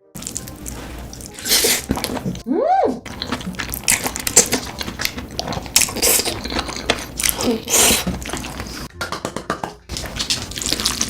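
Close-miked eating sounds: a person chewing and crunching food, with many quick clicks, smacks and wet squishes. About three seconds in, a short tone rises and falls.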